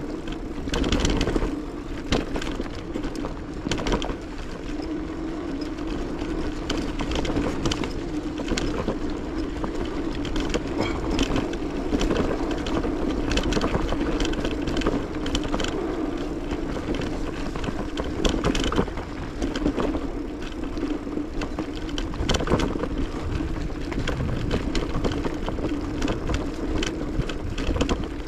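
Bicycle riding heard from the rider's own camera: a steady hum of tyres rolling, with frequent short clicks and rattles from the bike over the path.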